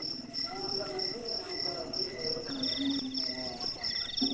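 Night crickets chirping in steady high pulses, about four a second, with a second, faster insect trill joining about halfway through, breaking off briefly and starting again near the end.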